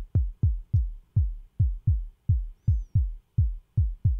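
Synthesized kick drum from Logic's ES P analog-modelled synth: filtered noise shaped by the filter envelope, hit repeatedly at about three a second. Each hit is a deep thump that drops quickly in pitch and dies away. The attack is turned up slightly, so the click at the front of each hit is softened.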